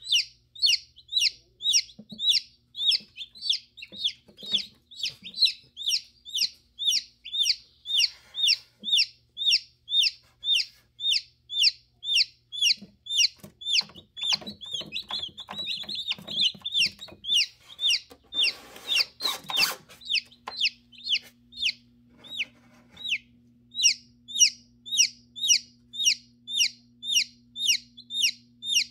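Newly hatching chicken chick peeping over and over, about two short high chirps a second, each sliding down in pitch, pausing briefly twice. Some rustling and knocking in the middle, over a steady low hum.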